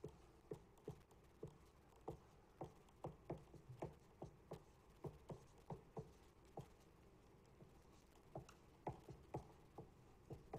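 Dry-erase marker writing on a whiteboard: a string of soft, irregular taps and short strokes as numbers are written, with small pauses between them.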